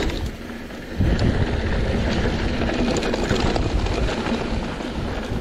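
Mountain bike riding down a dry, rough dirt trail: tyres rolling over loose dirt and rocks and the bike rattling, with wind rushing over the microphone. It gets louder about a second in.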